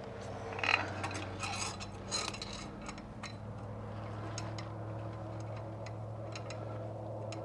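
Light clicks and clinks of hand work with parts and tools on an electric motor's housing, busier in the first few seconds and sparser after, over a steady low hum.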